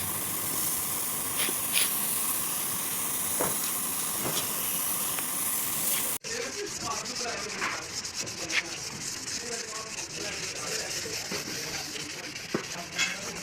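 A compressed-air tool hissing steadily. About six seconds in, the sound cuts off abruptly to a quieter hiss with voices in the background and a few short clicks.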